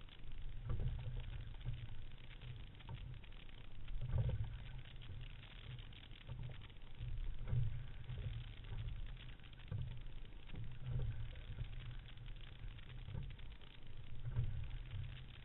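Water washing against the hull of a Fluidesign single racing scull as it is rowed, with a low rumble that surges about every three and a half seconds in time with the strokes.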